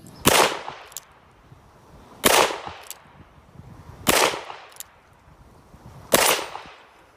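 A revolver fired four times, about two seconds apart, each shot sharp with a fading echo. A light click follows each of the first three shots.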